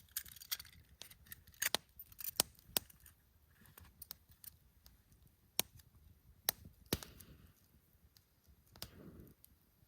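Open wood campfire, burning fallen deadwood on bare ground, crackling with irregular sharp pops and snaps.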